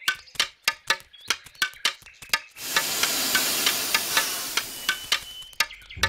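Cartoon sound effects: quick light taps, about three a second, and from about two and a half seconds in a geothermal steam vent hissing steadily for about three seconds before it stops.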